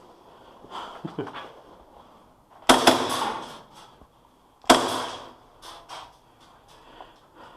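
Airsoft guns firing: two loud short bursts about two seconds apart near the middle, with fainter shots before and after.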